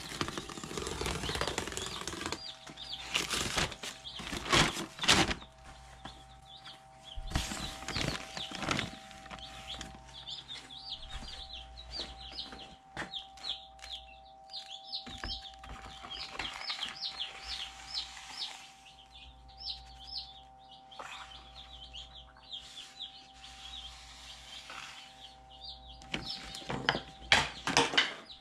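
A brood of chicks peeping constantly in short high falling notes. A feed bag rustles and chick feed is poured into a plastic trough feeder in a few louder spells: two in the first several seconds and one near the end.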